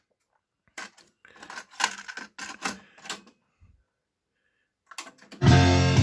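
Music played over a hi-fi: a song cuts off, a few seconds of quiet plucked guitar notes follow with a short gap, then loud full-band music comes in about five and a half seconds in.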